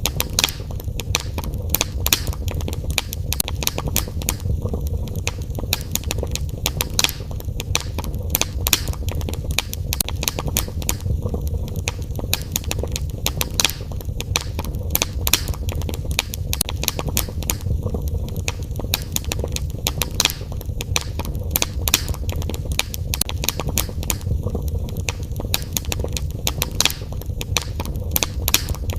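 Wood fire burning in a fireplace: irregular crackles and pops, several a second, over a steady low rumble of the flames.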